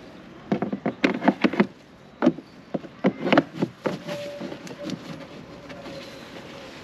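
Hard plastic clicking and knocking as gloved hands handle panels and a lid in a scooter's under-seat storage compartment, in quick clusters about half a second in, briefly near two seconds, and again around three seconds. A faint steady tone carries on quietly after that.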